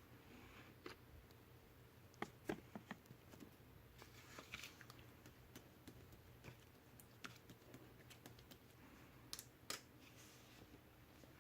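Faint, irregular small clicks and taps over a low hum, with a short cluster of louder ones about two seconds in and another near the end.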